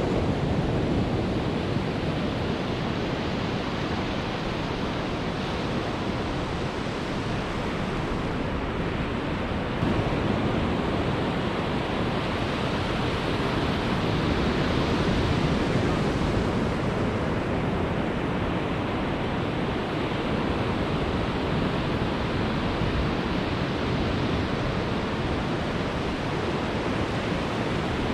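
Steady noise of ocean surf breaking on a sandy beach, mixed with wind on the microphone.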